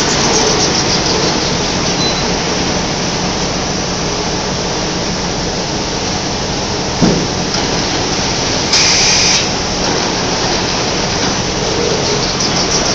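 Tissue paper production line machinery running with a steady, noisy din. There is a sharp knock about seven seconds in and a brief high hiss near nine seconds.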